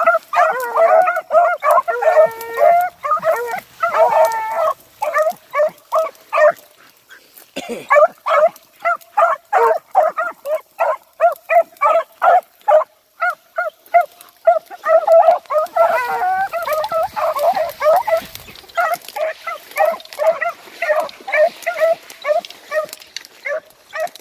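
Pack of rabbit hounds baying as they trail a rabbit on a hot scent. Several voices overlap at first, then after a short lull about seven seconds in comes a run of quick, regular bays, two or three a second, with more overlapping voices later.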